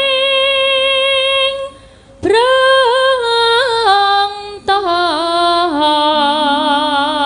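A female sinden singing a Javanese song in long, drawn-out melismatic notes. She holds one note, breaks off briefly about two seconds in, comes back with a rising scoop and small ornamental turns, and ends on a held note with a steady wavering vibrato.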